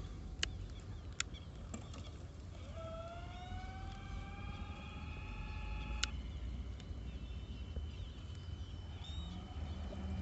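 Small electric motor whine rising in pitch for about three seconds and then levelling off, followed by a thin steady high tone, over a low steady rumble with a few sharp clicks. The likely source is the RC bait boat's brushless motor.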